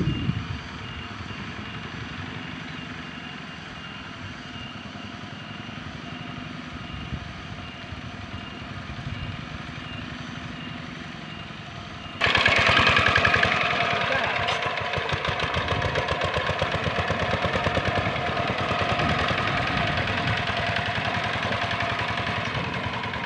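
Single-cylinder Dongfeng diesel engine of a Quick Impala two-wheel hand tractor running steadily while ploughing a flooded rice paddy. It is fainter at first, then suddenly much louder and closer about twelve seconds in, with a fast regular beat.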